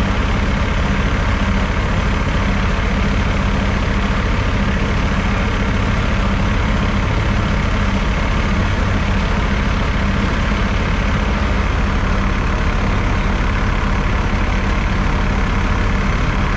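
Heavy vehicle engine idling steadily, a constant low hum.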